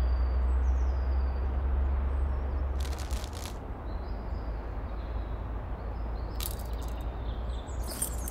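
Wind rumbling on the microphone, easing about halfway through, with two short bursts of crinkling foil packaging, about three seconds in and again near six and a half seconds, as a foil pouch is handled and opened.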